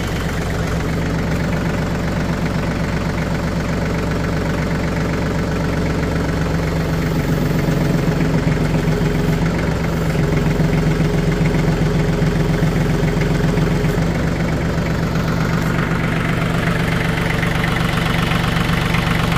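Branson 2515H compact tractor's diesel engine running steadily while its front loader hydraulics lift about 2,000 lb of concrete on pallet forks. The engine note shifts a few times during the lift.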